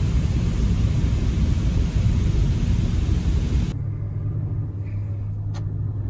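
High-pressure water jets of a touchless automatic car wash spraying the car, heard from inside the cabin as a loud steady hiss that cuts off suddenly a little over halfway through, leaving a steady low hum.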